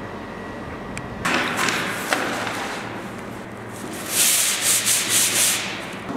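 A painted wooden board being sanded by hand: a gloved hand rubs a sanding pad across the surface in scratchy back-and-forth strokes, fastest and loudest about four to five and a half seconds in.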